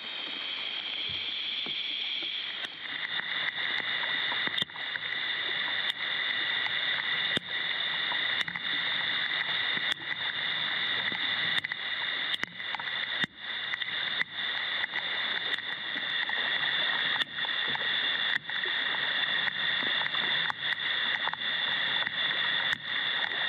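Heavy rain falling on a lake's surface, a steady hiss, with frequent sharp ticks of drops striking close to the microphone.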